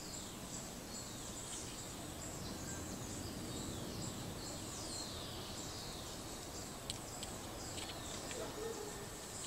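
Woodland ambience: birds calling with high, falling notes repeated about once a second over a steady background hiss, with a faint steady high insect-like hum.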